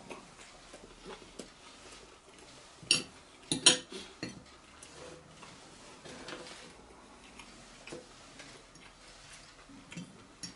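Light clicks and clinks of tableware on a glass-topped table while food is picked apart by hand on a plate. The loudest come in a quick cluster about three to four seconds in, with fainter scattered taps elsewhere.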